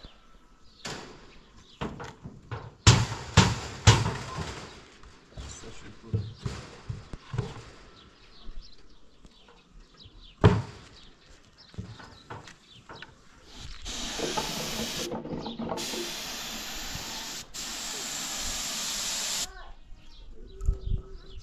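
Wooden knocks and clunks as wooden frames are handled, the loudest in a cluster a few seconds in. Then a compressed-air gravity-feed paint spray gun hisses, first in a short burst and then in a steady spray of about four seconds.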